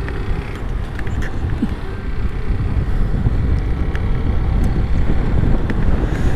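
Wind buffeting the microphone over the running engine and road noise of a motorcycle being ridden at steady speed, getting a little louder about three seconds in.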